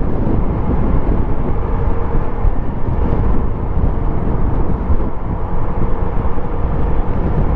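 Steady low rumble of a vehicle travelling on the road, with a faint steady hum running through it.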